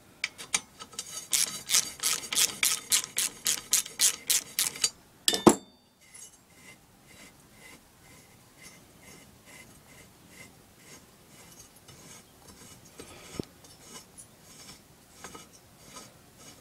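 Hand ratchet wrench clicking at about three to four clicks a second while cylinder head bolts are undone on a small engine. A single sharp crack comes about five and a half seconds in, followed by fainter, quicker ratchet clicking.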